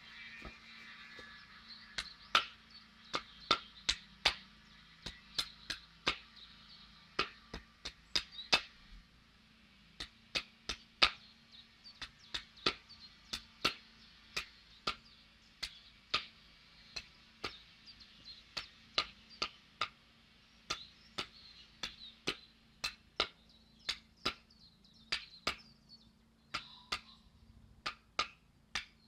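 Hand blade chopping the end of a wooden stake to a point on a chopping block: sharp wooden chops in quick, uneven succession, about two a second.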